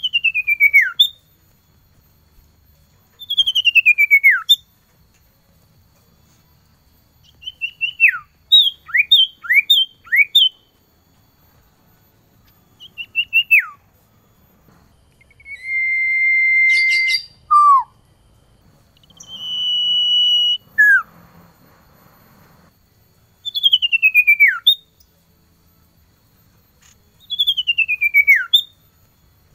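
Male common iora singing: clear whistles that slide down in pitch, each about a second long, repeated every few seconds. About eight seconds in there is a quicker run of short falling notes, and in the middle two long level whistles. This is the male's song calling to a female.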